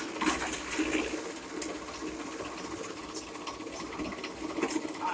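Mini chaff cutter running while green fodder stalks are fed in, its blades chopping them with irregular crunching cuts over a steady mechanical hum.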